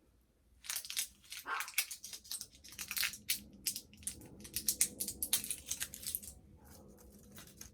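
Plastic doll packaging crinkling and crackling as it is handled and pulled off, in quick irregular bursts that start about a second in and die down near the end.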